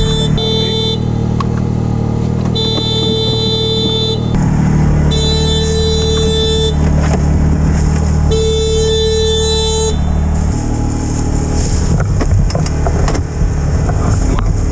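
A side-by-side's engine runs steadily while a horn sounds in long blasts of about a second and a half, four times, roughly every three seconds.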